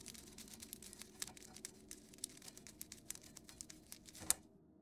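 Skittering sound effect: many small, irregular clicks and crackles, like creatures scuttling through branches, over a faint low drone. A louder click comes a little past four seconds, then the sound fades out.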